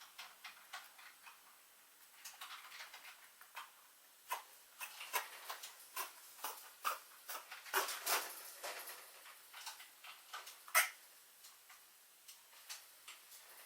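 A small pet sneezing: a run of short, sharp puffs and clicks at irregular intervals, thickest in the middle, with the sharpest one about eleven seconds in.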